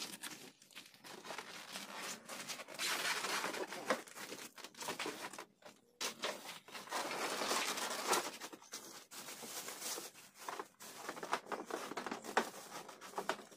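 Cardboard carton and plastic wrapping rustling and crinkling while a large boxed band saw is tipped over and unpacked, with short knocks and scrapes of the carton between the spells of rustling.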